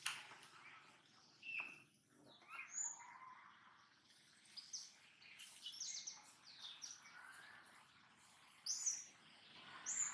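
Capuchin monkey making a string of short, high-pitched chirps and squeaks, with a louder shrill squeal near the end.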